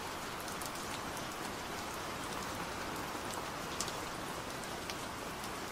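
Steady rain falling: an even hiss with faint scattered drop ticks.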